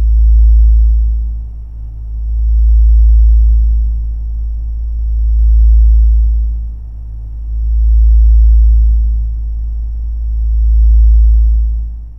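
Deep, low soundtrack drone that swells and fades about every two and a half seconds, five times in all, with a faint steady high whine above it, dying away near the end.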